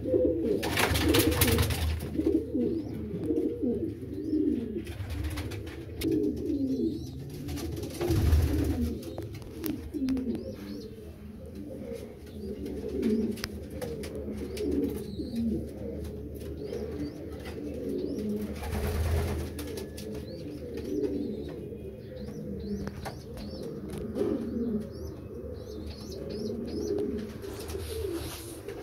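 Many domestic racing pigeons cooing at once in a loft, a steady overlapping murmur of low rolling coos. A few brief louder rushes of noise stand out, about a second in, around eight seconds and around nineteen seconds.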